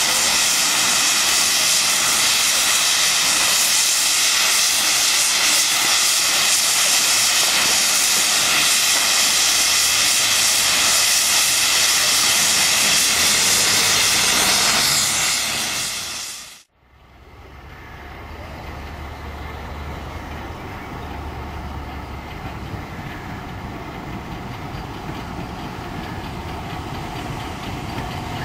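LMS Black Five steam locomotives' safety valves blowing off: a loud, steady hiss of escaping steam that cuts off suddenly about sixteen seconds in. It is followed by a much quieter low rumble of a steam train approaching, growing slowly louder.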